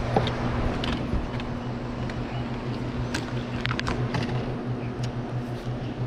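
Rushing, churning water below a dam with a steady low hum under it, and a few light clicks a little past the middle.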